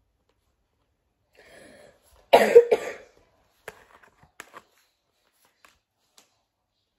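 A person coughing, two quick loud coughs about two seconds in after a short breath in. Afterwards a few light clicks of plastic-coated playing cards being laid down on a pile.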